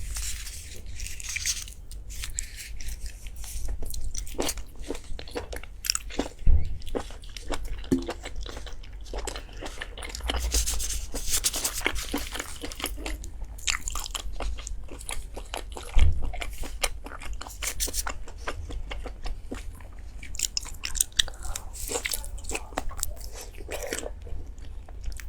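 Close-miked eating of crunchy food: a steady run of crisp bites and chewing, thick with sharp crackles, with a couple of dull thumps.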